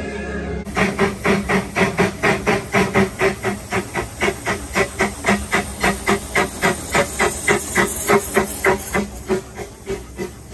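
Steam-style locomotive chuffing in steady rhythmic puffs, about four a second, with a hiss of steam. It fades near the end.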